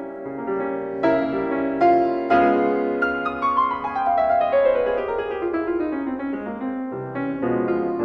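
Background piano music, gentle and melodic; in the middle a long run of notes steps down in pitch.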